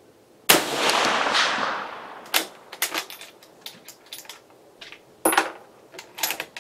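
A single shot from an M96 Swedish Mauser rifle in 6.5x55mm about half a second in, with a long echoing tail that fades over more than a second. It is followed by a string of sharp metallic clicks and clacks as the bolt is worked open, back, forward and closed.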